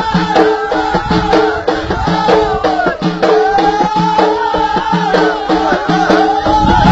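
Ahidous folk music: voices singing a chant over the beat of bendir frame drums.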